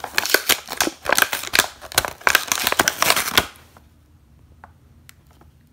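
Plastic blister packaging of a die-cast toy car being torn and pulled off its cardboard backing card: a dense run of sharp crackles and clicks for about three and a half seconds, then it stops, leaving only a few faint ticks.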